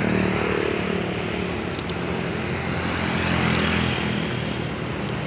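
Tour bus engine running as the bus moves off, its pitch dipping in the first second, with a swell of engine and road noise about three to four seconds in.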